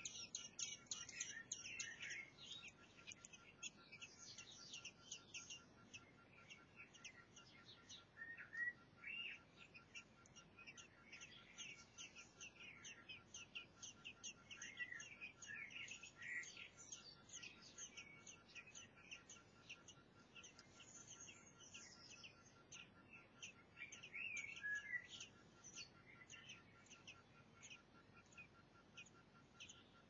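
Faint, thin, high-pitched chirping from blackbird nestlings begging, a rapid run of short cheeps that goes on throughout with louder bursts near the start and a few times after.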